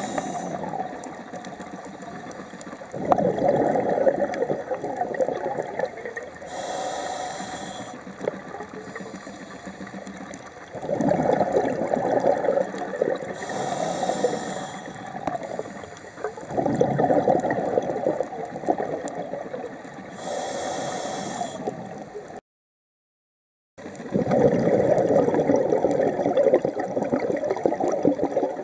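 Scuba diver breathing through a regulator underwater: a short hiss with each inhalation, then a few seconds of bubbling exhaust, repeating roughly every seven seconds. The sound cuts out completely for about a second a little past two-thirds through.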